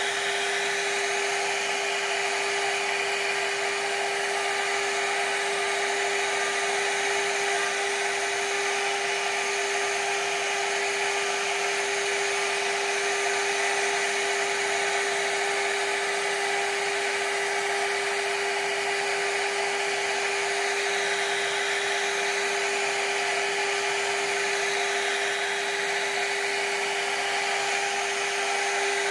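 CNC router spindle cutting a floral relief into a wooden door panel: a steady high whine with a hiss over it, unchanging throughout.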